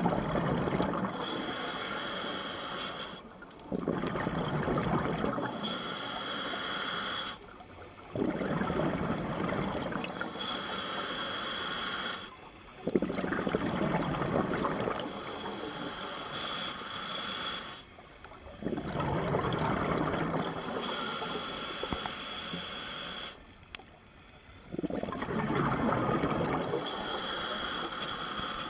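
Scuba diver breathing through a regulator, heard through the camera's underwater housing: a regular cycle of hissing and bubbling breaths, each lasting a few seconds, with a short pause about every five seconds.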